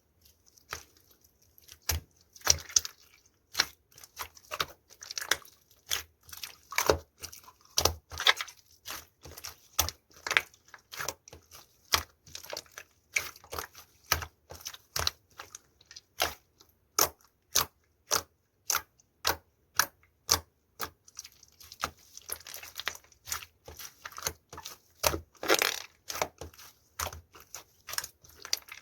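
Slime being worked by hand, giving a steady run of sharp pops and clicks, about one or two a second, with stretches of denser crackling in between.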